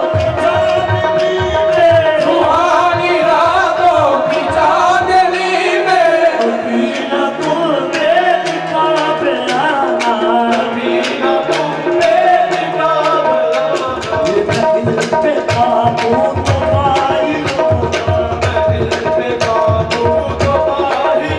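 Live qawwali: male voices singing over tabla drumming. The tabla's deep strokes drop out for about ten seconds in the middle, then come back with a steady beat.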